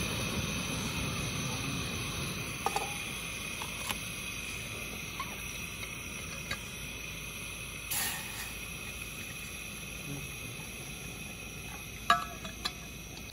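Portable gas stove burner running with a steady hiss. A metal clink comes about two and a half seconds in as an aluminium pot is set on it, and a few small clicks near the end come as a steel bottle's cap is unscrewed.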